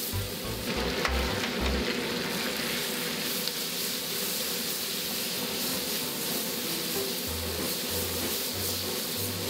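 Squid and onions sizzling in a hot carbon-steel wok while a metal wok ladle stirs them through the pan. Background music with a low bass beat comes in near the start and again near the end.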